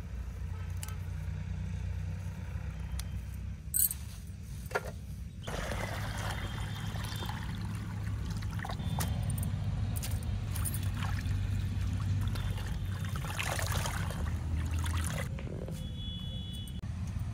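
Water poured from a plastic bucket into a plastic basin: a steady splashing pour starting about five seconds in and lasting about ten seconds, heaviest near its end. A couple of sharp clicks come just before it, over a low steady hum.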